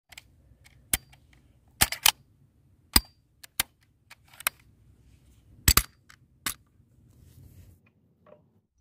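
RPD light machine gun giving about nine sharp cracks at uneven intervals, some in quick pairs.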